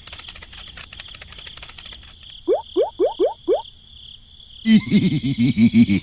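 Frog-like croaking calls over a steady high insect-like trill. There are five quick rising calls about two and a half seconds in, then a rapid run of low croaks near the end.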